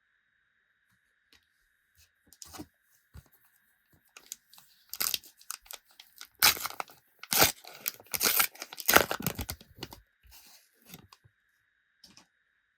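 Foil trading-card packet being torn open and crinkled: a run of ripping and rustling noises, loudest about halfway through.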